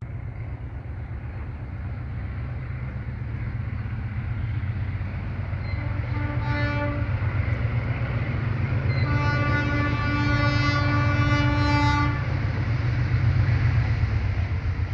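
Two ALCO RSD-16 diesel locomotives approaching, their engines a low rumble that grows steadily louder. The multi-tone horn sounds a short blast about six seconds in, then a long blast from about nine to twelve seconds.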